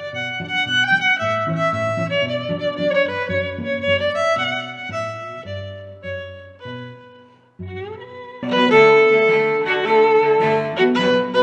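Background instrumental music. It fades almost away about seven and a half seconds in, then comes back louder with a rising note.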